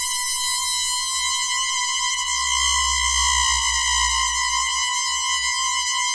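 Synthesized sci-fi sound effect: a steady electronic drone of stacked, slightly wavering high tones over an unsteady low rumble, holding at an even level.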